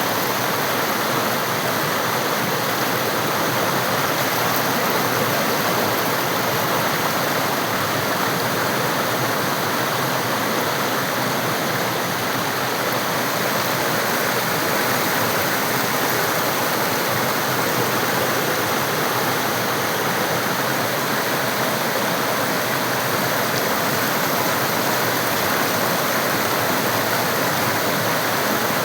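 Mandakini river water flowing, a steady rush of moving water with no change in level.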